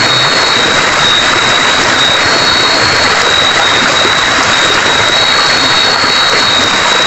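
Dense chorus of night insects: a steady high-pitched trill with a slightly higher note that joins for about a second roughly every three seconds, over a loud steady hiss.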